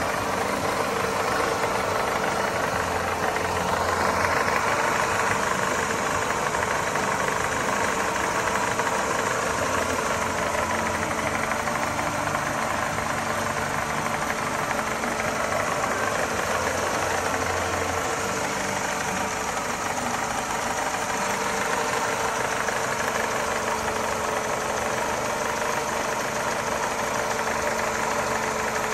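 1998 Mercedes-Benz petrol engine idling steadily.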